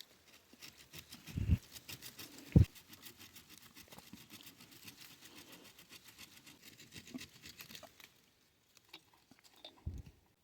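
Hand-tool work with a multi-tool: a run of quick, light scraping strokes, with two knocks about a second and a half and two and a half seconds in, the second the loudest, and a few soft knocks near the end.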